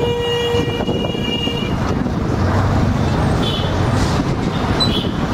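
Street traffic noise heard from a moving vehicle, with a steady road rumble. A vehicle horn holds a pitched tone for about the first second and a half, and two short high-pitched beeps follow later.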